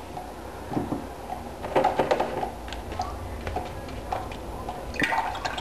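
Light, scattered taps and clicks of a paintbrush against a watercolour palette and water jar while paint is loaded and splashed onto wet paper.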